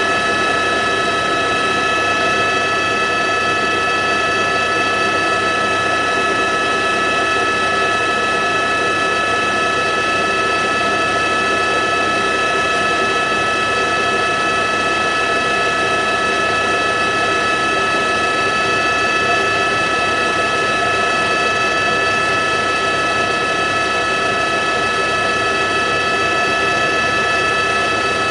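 Steady drone of an aircraft's engine heard from on board, with several high steady whining tones over an even rushing noise that does not change.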